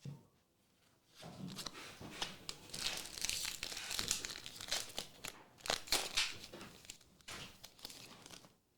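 A trading card pack wrapper being torn open and crinkled, with dense crackling and sharp snaps for several seconds.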